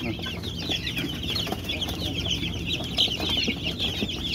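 A flock of month-old kampung chicks peeping all at once: a dense, continuous chorus of many overlapping high, short, falling cheeps.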